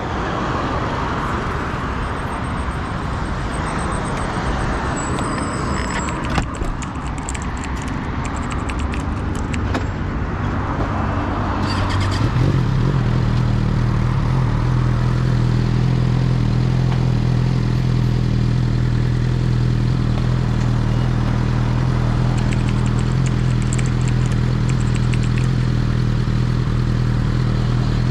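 Superbike riding at speed, heard from the rider's helmet camera: rough wind and road noise at first, then, a little before halfway, a steady engine drone at one unchanging pitch as the bike holds a constant speed.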